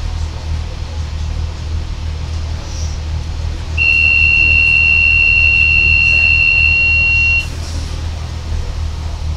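A single loud, steady high-pitched electronic beep lasting about three and a half seconds, starting about four seconds in, over the steady low drone of a Class 143 Pacer diesel railcar.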